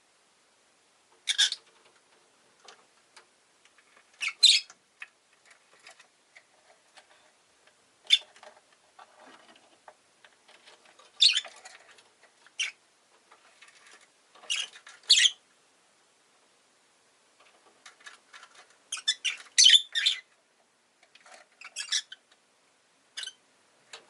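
Rosy-faced lovebird giving short, sharp chirps every few seconds, with a quick run of calls about three quarters of the way through. Faint ticking sounds fall between the calls.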